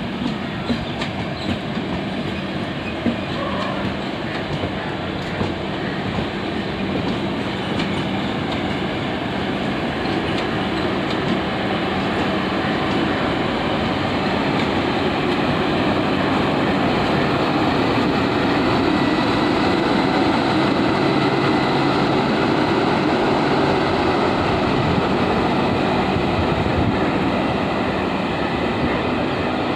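Express train of LHB passenger coaches running past at speed: a steady rumble of wheels on rails that builds to its loudest in the second half, then eases slightly near the end.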